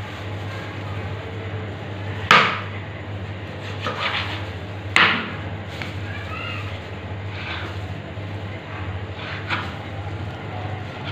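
Knife knocking on a wooden cutting board while raw chicken is cut into small cubes: a few scattered chops, the two loudest about two and a half seconds apart, with fainter knocks between and after.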